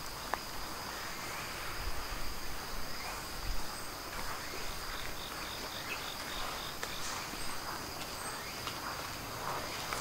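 Insects singing with a steady, high, unbroken drone, joined about five seconds in by a short run of quick chirps, about four a second. Faint soft footsteps on sandy ground come and go.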